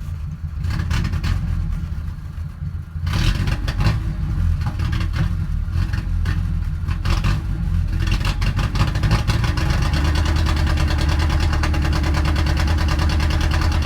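1998 Ford Ranger's four-cylinder engine, with two spark plugs per cylinder, running roughly with uneven, stumbling pulses. It grows louder and steadier about three seconds in. The owner takes the rough running for a misfire, but is not sure.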